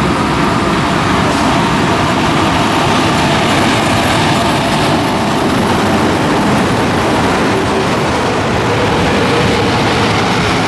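Freight train hauled by an electric locomotive passing close by on the adjacent track: a loud, steady rumble of wheels and wagons.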